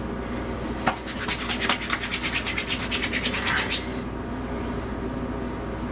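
Hands rubbing pomade between the palms: a quick run of rubbing strokes, about eight a second, starting about a second in and stopping after about three seconds.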